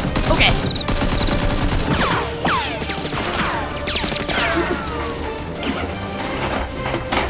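Background action music with a steady low beat, overlaid with sound effects: a few sharp hits in the first second, then several falling-pitch sweeps between about two and four seconds in.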